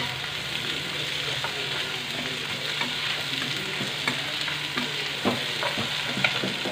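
Chopped onions and chillies frying in hot oil in a pan, with a steady sizzle. A spatula stirs them, knocking and scraping against the pan now and then.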